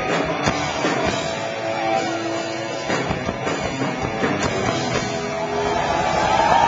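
Hard rock band playing live: electric guitars, bass and drums at full volume, recorded from within the audience.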